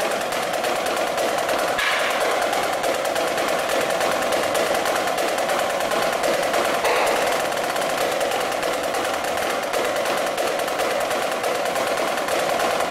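Marching snare drum played solo with sticks: a fast, unbroken stream of strokes and rolls, with louder accents about two and seven seconds in.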